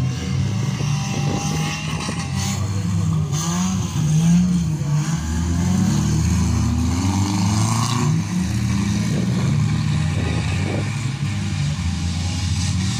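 Several motor engines running together, their pitch rising and falling unevenly as they rev.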